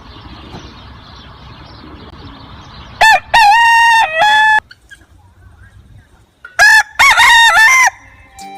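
Rooster crowing twice, a few seconds apart, each crow a loud multi-note cock-a-doodle-doo, over faint background noise.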